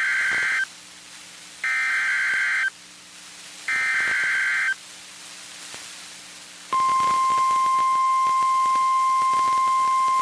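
NOAA Weather Radio Emergency Alert System tones for a severe thunderstorm warning. First come three one-second bursts of SAME digital header data, about a second apart. Then, about seven seconds in, the steady 1050 Hz warning alarm tone starts.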